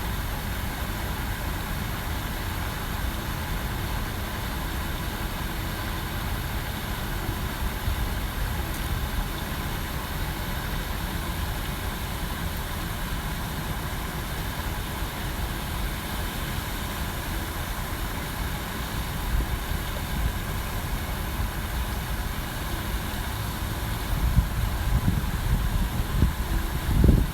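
A steady low rumble, growing louder and more uneven near the end.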